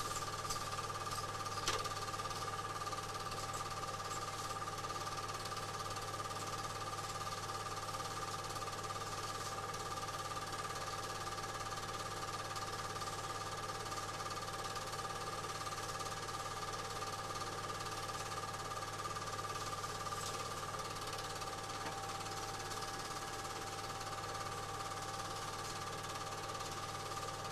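Film projector running steadily, its motor and film mechanism a continuous mechanical whir with a low hum beneath.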